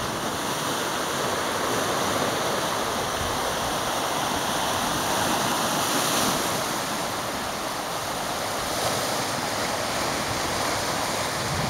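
Sea surf washing over a rocky shoreline: a steady hiss of breaking water that swells slightly about halfway through.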